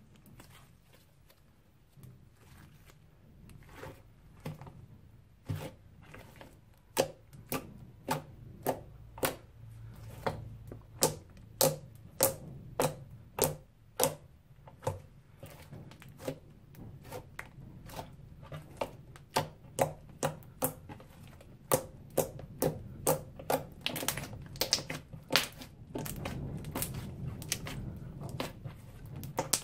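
Slime being pressed and kneaded by hand, giving a run of sharp clicking pops, one or two a second, that grow louder and more frequent after the first few seconds.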